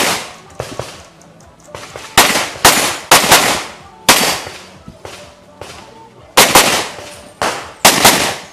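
Pistol shots fired in quick pairs with short pauses between, about nine in all, each with a brief ringing tail: a competitor engaging targets on a practical shooting stage.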